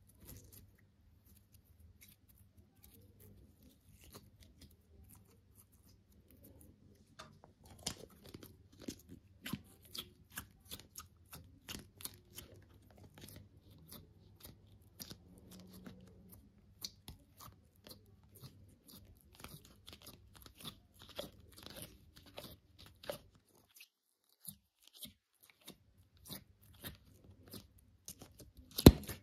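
Slime being handled: a run of crisp clicks and crackles, several a second, starting about a quarter of the way in, with one loud snap near the end.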